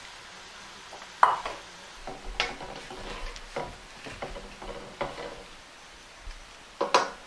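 Wooden spoon stirring and scraping sliced mushrooms around a stainless steel frying pan in irregular strokes, over a low sizzle from the pan. A couple of sharper clinks near the end.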